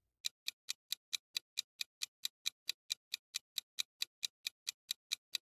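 Countdown timer sound effect: a soft, steady clock-like ticking, about four to five ticks a second.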